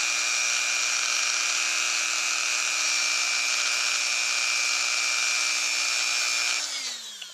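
Craftsman rotary tool with a buffing pad running at a steady high speed while it polishes a small metal Glock part. Near the end it is switched off, and its whine falls in pitch as it spins down.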